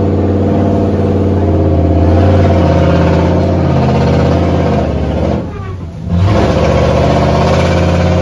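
Monster truck ride vehicle's engine running under throttle, loud and steady. About five seconds in the engine note drops away for about a second, then comes back.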